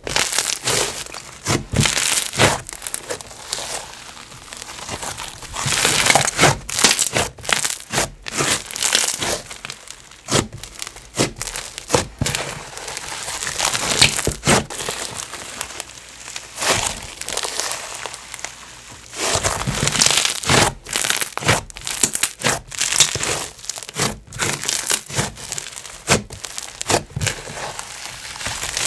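Overactivated clear glue snow fizz slime (Slime Obsidian's Galaxy Fizz) being squished and stretched by hand, giving dense crackling sizzles and many bubble pops.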